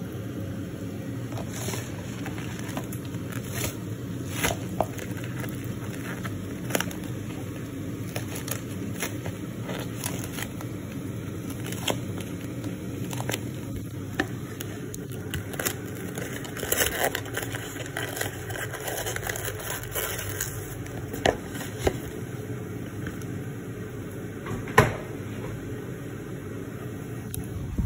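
Kitchen sounds: a steady low hum with scattered light clicks and knocks, and one sharper knock near the end.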